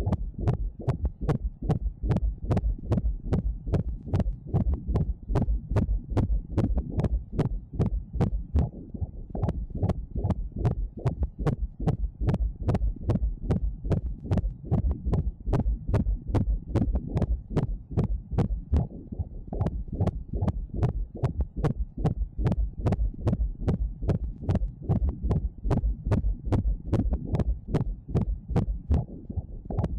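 Fast fetal heartbeat: a steady rhythmic pulse of about two and a half beats a second, each beat with a sharp click on top.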